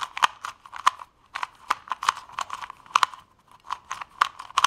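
Plastic layers of a stickerless 2x2 cube puzzle clicking as they are twisted by hand: irregular clicks, several a second, with a short pause about a second in.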